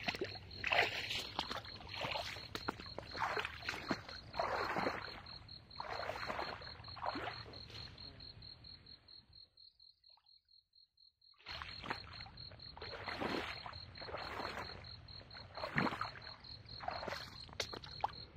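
Footsteps of a man in rubber waders swishing and splashing through tall wet grass and shallow swamp water, a step every second or so, over a steady high insect trill. The sound drops out almost entirely for about two seconds midway, then the steps resume.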